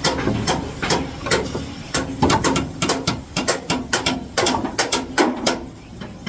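Rapid, irregular metal knocks and clatter, some with a short ring, from aluminium formwork being worked.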